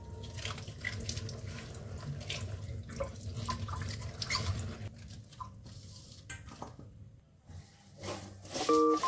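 Kitchen tap running into a sink with splashing, which stops about five seconds in, leaving a few light knocks and clinks. Background music with chime-like notes comes in near the end.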